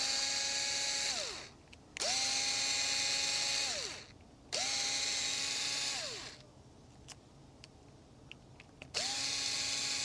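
Cordless electric screwdriver backing out small screws: three short runs, each a steady whine that winds down as it stops, then a fourth run starting near the end. A few light clicks come in the longer pause before the last run.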